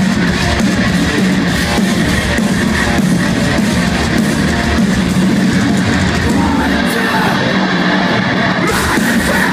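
Metalcore band playing live at loud volume: heavy distorted electric guitars and drums, heard from within the audience.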